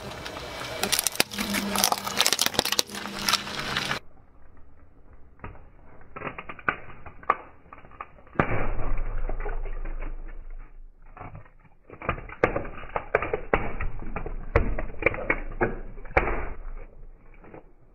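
A car tyre rolls slowly over a soft rainbow-coloured spiral toy in a plastic tube on asphalt, crushing it. Dense crackling at first gives way to scattered crackles, clicks and pops as the plastic gives and the soft filling squeezes out, with a low rumble beneath from about halfway through.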